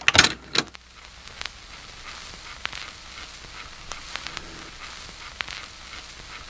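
A few sharp clicks, then a steady hiss with scattered ticks and crackles, played back through computer speakers. This is the cassette recorder shown on screen: its mechanism clicking, then the tape running with its noise.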